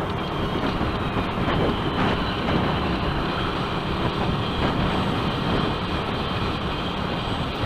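Yamaha YZF-R125's 125cc single-cylinder engine running under way, under a steady rush of wind and road noise.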